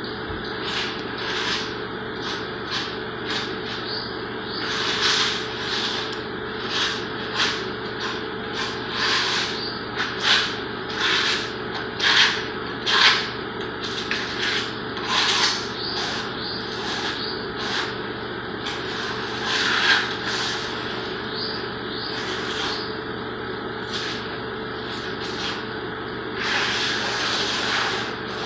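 A hand tool scraping and rubbing across a subfloor in irregular short strokes, about one or two a second, over a steady low hum.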